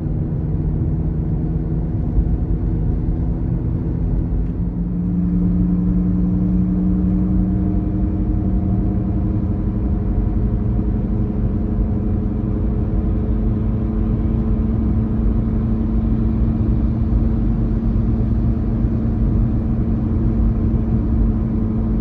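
A steady low droning hum over a rumble. About five seconds in, the drone steps up in pitch and gets slightly louder, then holds steady.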